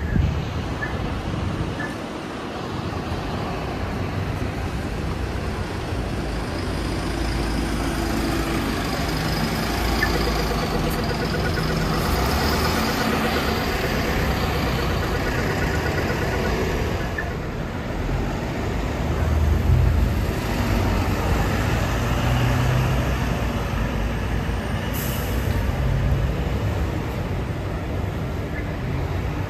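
MAN double-decker diesel buses running and moving off through a bus interchange, a steady low engine rumble that swells and fades as they pass. A short hiss of compressed air, typical of a bus's air brakes, comes near the end.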